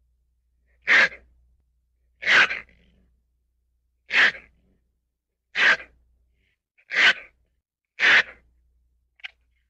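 Ferret sneezing repeatedly: six short, sharp sneezes about a second to a second and a half apart, and a faint seventh near the end.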